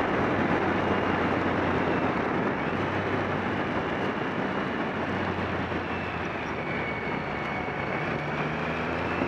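Heavy wind rush over the camera at road speed, with a motorcycle engine running steadily underneath; the engine note rises a little near the end.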